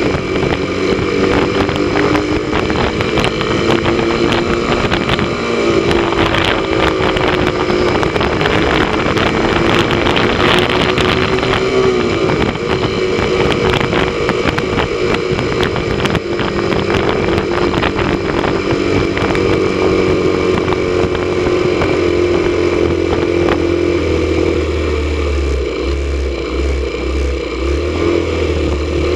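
Motorcycle engine running steadily at a cruise, its note rising and dipping slightly, with wind rushing over the microphone.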